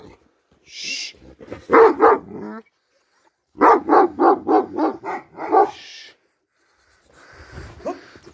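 Large shepherd-type dogs barking in quick runs, a few barks about two seconds in, then a longer run of about eight rapid barks.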